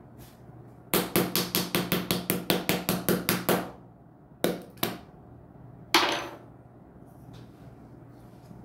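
A small hammer tapping a breakable chocolate cake shell: a fast run of about seventeen taps, roughly six a second, then three single knocks.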